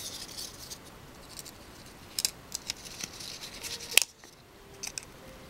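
Accordion-pleated cardstock being handled and pressed together, crinkling and rustling in the hands in short scattered bursts, with one sharp snap about four seconds in.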